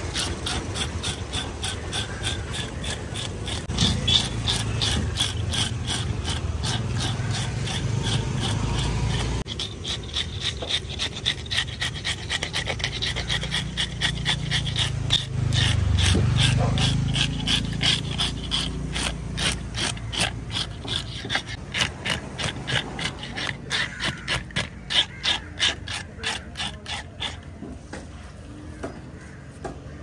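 Scales being scraped off a large fish with a hand scaler: rapid, even rasping strokes, about three to four a second, weakening near the end. A low rumble runs underneath.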